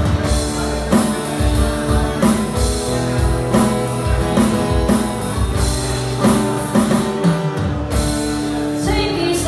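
Live acoustic band music: a strummed acoustic guitar over held chords and a steady percussion beat. A woman's voice comes in near the end.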